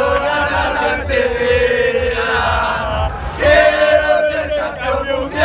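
Argentine football fans chanting a song together, mostly men's voices holding long notes in unison. They pause briefly about three seconds in, then come back louder.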